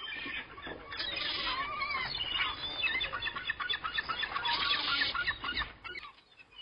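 Many seabirds calling over one another in a dense colony chorus, over a low steady rumble; the calls die away near the end.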